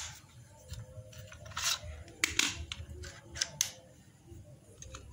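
About six sharp mechanical clicks and short hissy bursts from an airsoft Glock 18 pistol, spread over a couple of seconds in the middle.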